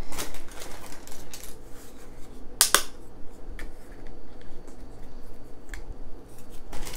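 Dry lasagna noodles clicking and tapping against a glass baking dish and each other as they are laid in by hand, scattered light clicks with one sharper crack a little under three seconds in.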